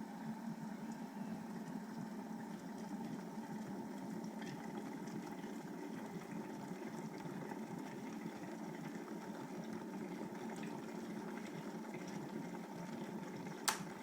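Electric kettle heating water to the boil, a steady noise of the water coming to the boil with faint ticks, then a single sharp click near the end as its switch turns off at the boil.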